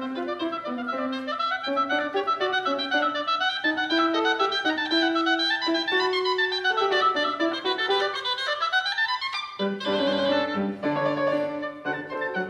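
A woodwind instrument playing a melody of quick rising and falling runs, accompanied by a grand piano whose lower notes thin out mid-phrase and come back fuller near the end.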